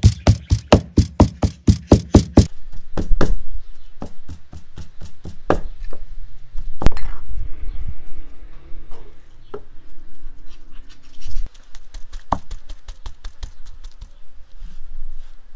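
Knife chopping raw lamb into mince on a wooden cutting board. A fast, even run of about five strikes a second stops about two and a half seconds in, then slower, irregular single chops follow.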